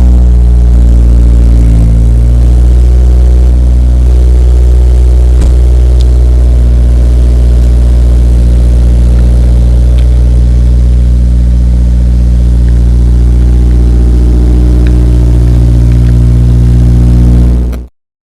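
Honda S2000 AP2's 2.2-litre four-cylinder engine idling after a cold start, exhaled through an Invidia exhaust with a test pipe in place of the catalytic converter. The revs settle within the first couple of seconds into a steady, loud idle, and the sound cuts off suddenly near the end.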